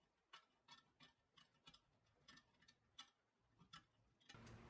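Faint, irregular little clicks and scrapes of a metal pick prodding at a rusted bolt in the corner of a cast iron hibachi grate.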